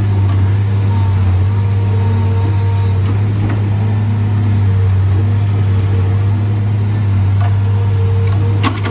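Diesel engine of a tracked log loader running steadily under load as it swings its grapple with logs: a constant low drone with a higher whine that comes and goes. A few sharp knocks sound near the end.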